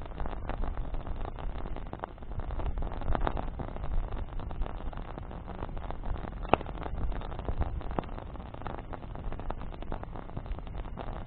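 Wood campfire burning: branches crackling with scattered sharp pops, one louder pop a little past halfway, over a low rushing of flames and wind.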